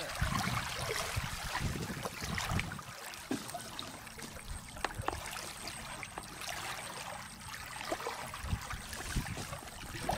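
Hands kneading and squeezing wet fishing groundbait in a plastic bucket of water: irregular wet squishing and sloshing, with a few small sharp clicks.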